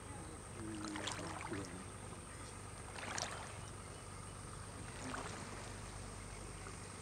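A houseboat moving across open lake water: a steady low hum with water washing, and short splashy sounds about one, three and five seconds in.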